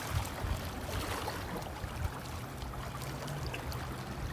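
Seawater sloshing and lapping among breakwater rocks, with a faint low steady hum underneath.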